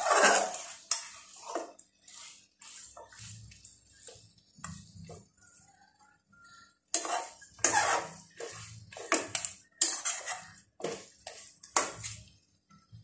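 Metal spatula scraping and knocking against an aluminium pressure cooker while goat trotters, onions and masala are stirred and sautéed until the oil separates. One loud scrape at the start, a few quieter strokes, then a quick run of strokes in the second half.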